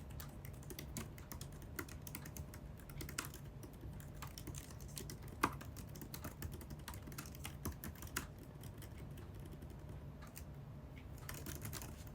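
Typing on an Apple keyboard: a run of light, uneven key clicks, with one louder tap about five and a half seconds in. A faint steady low hum lies underneath.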